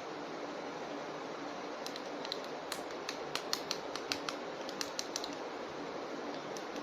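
Light, irregular plastic clicks and taps from an action figure and its packaging being handled, over a steady background hiss. The clicks start about two seconds in.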